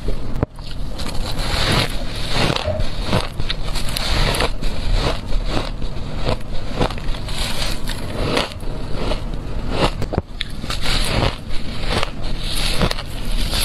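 Crunchy white crushed ice bitten and chewed, a dense run of crackling crunches and sharp snaps, with a brief gap about half a second in.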